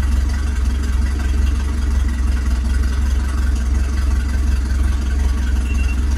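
Mercury boat engine idling steadily in neutral at about 800 rpm, shortly after being started.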